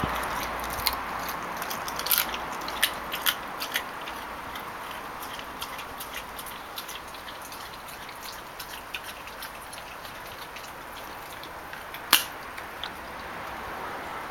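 Labrador puppy crunching and chewing a raw chicken leg bone: sharp cracks come thick in the first few seconds, then sparser, with one loud crack near the end.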